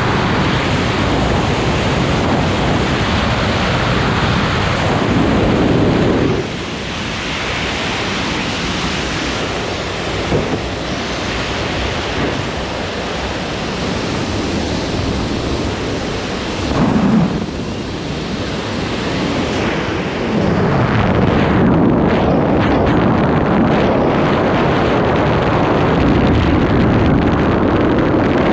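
Loud rushing wind on the microphone of a wingsuit flyer's camera in freefall. It eases a little about six seconds in, surges briefly near seventeen seconds, and strengthens again about twenty seconds in.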